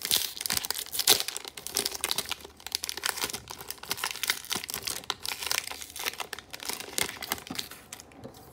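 Plastic wrapping on a hanger box of hockey cards being torn open and crinkled by hand, an irregular run of crackles with the loudest about a second in.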